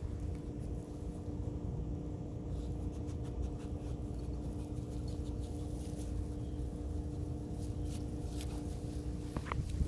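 A steady low mechanical hum, a few constant tones over a low rumble, like a motor running somewhere off. A few faint rustles come near the end.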